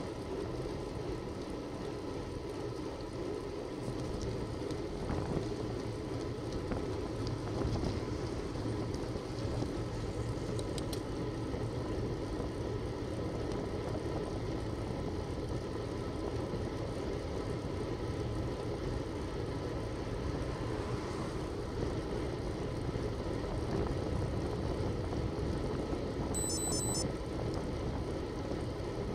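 Steady wind and road rumble picked up by a bicycle-mounted Cycliq camera while riding at about 16 mph. Near the end comes a short run of high electronic beeps.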